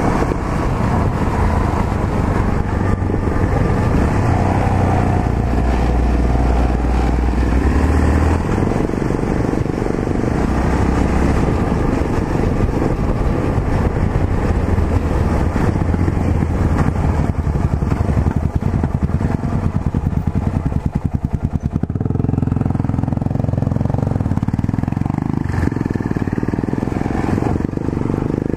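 Yamaha XT 660Z Ténéré's single-cylinder engine running on the move. About twenty seconds in it settles into a slow, even pulsing for a couple of seconds, then its note changes.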